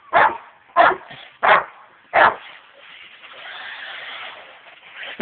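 Rottweiler barking four times, about one bark every two-thirds of a second, followed by a steady hiss.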